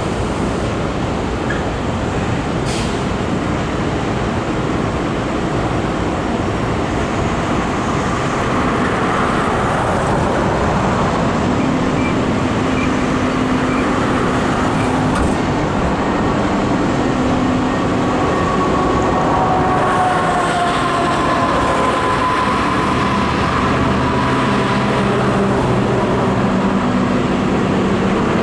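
Engines running with a steady low rumble. Several hums come and go over it, and a whine slides slowly down in pitch from about two-thirds of the way in.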